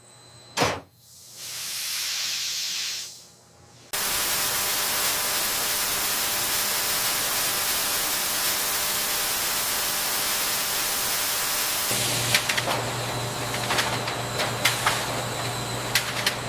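Steam hissing from a noodle-steaming line: a single click, a short swell of hiss, then a steady loud hiss from about four seconds in. About twelve seconds in, a low machine hum and scattered clicks and knocks join it.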